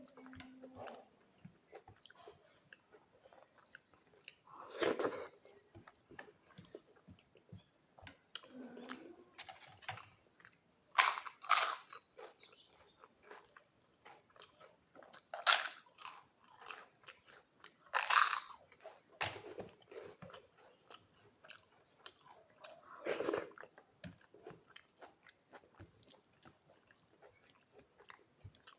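A person chewing rice and soft cooked vegetables close to the microphone: a steady run of small mouth clicks and smacks, with about half a dozen louder bites spread through.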